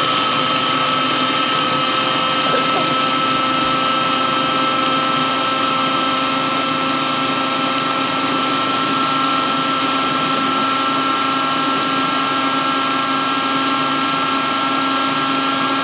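Electric food processor running steadily, blending milk and crushed ice into a milkshake. Its motor holds an even, unchanging whine throughout.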